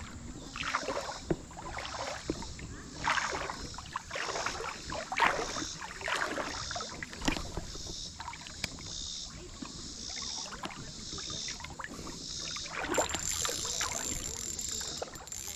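Stream water splashing and sloshing in irregular bursts.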